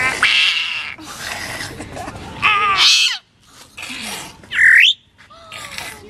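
African grey parrot calling in a string of squawks and whistles. The loudest is a short whistle that dips and rises again, near the end.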